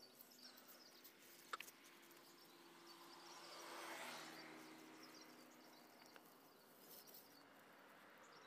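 Near silence: faint outdoor ambience with a steady low hum, a single click about a second and a half in, and a soft swell of hiss around the middle.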